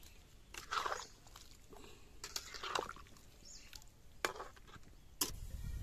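A flat metal spatula stirring simmering curry in a metal kadai, with a few short scrapes and knocks against the pan.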